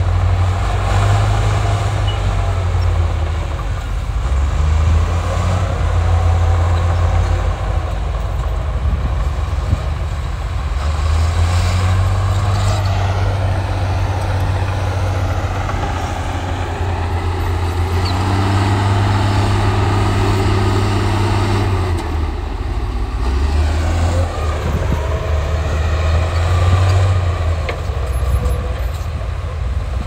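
Komatsu crawler bulldozer's diesel engine working under load while pushing soil, its deep note rising and falling every few seconds.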